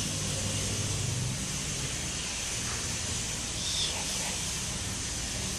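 Steady background hiss with a faint low hum, and a brief faint high chirp about four seconds in; no distinct event.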